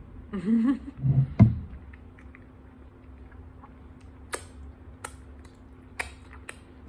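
Mouth sounds from eating: a short "mm" of enjoyment in the first second, then a scattering of sharp lip smacks and finger-licking clicks, about four of them spread over the rest.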